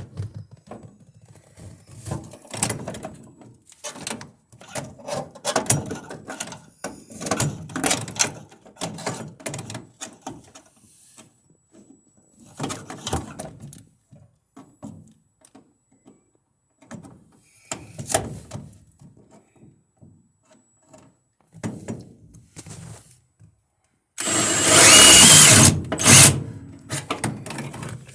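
Scattered knocks and clatter of tools being handled on a car's firewall, then a handheld power drill runs loudly for about two seconds near the end, drilling a 1/4-inch hole through the firewall.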